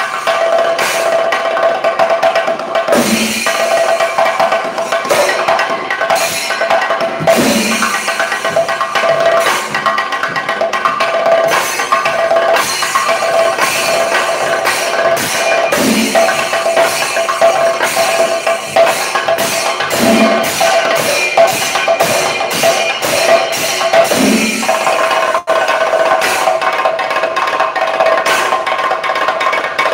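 A chenda melam ensemble of Kerala chenda drums beaten with sticks in a fast, continuous rhythm, with heavier accented strokes every few seconds.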